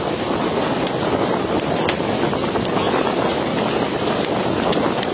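Steady rushing of wind and churning sea water beside a fishing boat, with a few sharp clicks.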